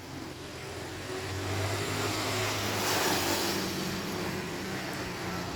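A motor vehicle passing by: a low engine hum and tyre rush that build to their loudest about three seconds in, then fade.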